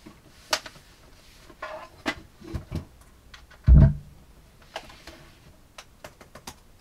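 Clicks and knocks from a laptop being handled, turned on its edge and opened on a tabletop, with one louder, deep thump about halfway through.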